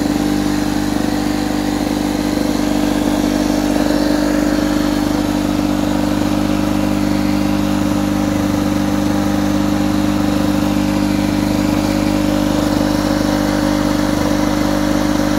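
A 1967–68 Lawn-Boy 3054 mower's two-stroke engine running steadily at a constant speed.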